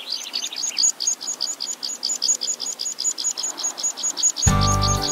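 Recorded bird chirping, a fast even run of short high chirps at about seven a second, opening a dance music track. The music, with strong bass and held notes, comes in about four and a half seconds in.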